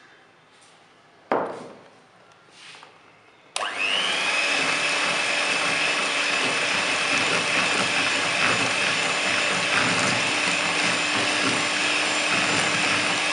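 A single knock about a second in, then an electric hand mixer switches on a few seconds in and runs steadily with a high whine that rises briefly as it spins up, its beaters whipping egg yolks into cake batter.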